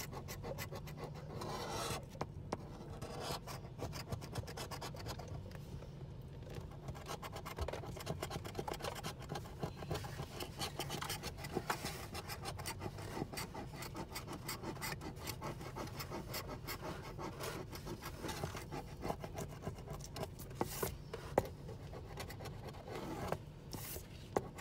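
Scratch-off lottery ticket being scratched: rapid, continuous scraping strokes rubbing the coating off the play area, with a few louder strokes near the end.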